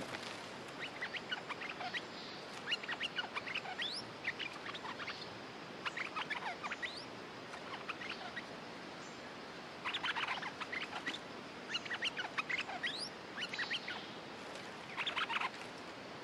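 Stripe-throated bulbuls calling: short phrases of quick, sweeping chattering notes, repeated every second or two with brief pauses between.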